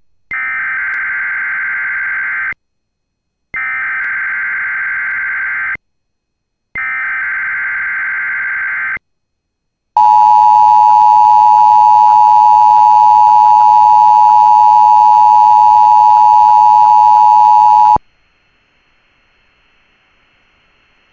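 NOAA Weather Radio EAS Required Weekly Test from station KEC65. It opens with three harsh SAME digital header bursts of about two seconds each, a second apart. Then comes the steady Weather Radio warning alarm tone, held for about eight seconds, which cuts off abruptly to a faint hiss.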